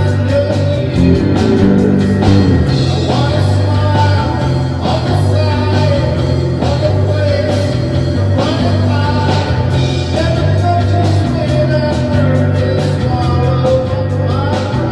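Three-piece rock band playing a song live: drum kit keeping a steady beat, bass guitar stepping between held low notes, and reverb-heavy echoing electric guitar.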